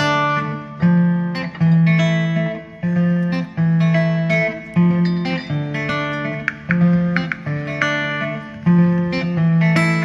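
Background music: a guitar playing a repeating pattern of plucked notes, a new note struck about every second.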